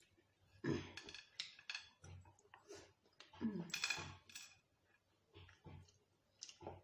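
Wooden chopsticks clicking and scraping against a ceramic plate while picking up fried rice, in two clusters of sharp clinks about a second in and around four seconds, with a few lighter taps near the end.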